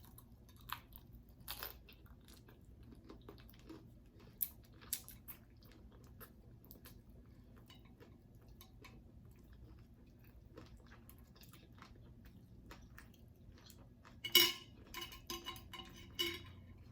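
Close-miked chewing and crunching of a taco, with scattered soft mouth clicks, then a louder cluster of crunching and clicks about fourteen seconds in.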